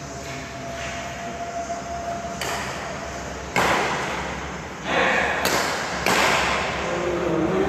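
Badminton rackets striking a shuttlecock during a rally in a large echoing sports hall: four sudden hits in the second half, each followed by a noisy wash of hall echo. Faint voices underneath.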